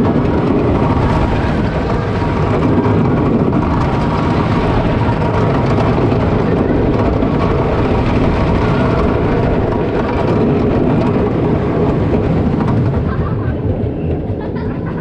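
Wooden roller coaster train rattling and rumbling at speed over its wooden track. The noise eases off about thirteen seconds in as the train slows into the final brake run.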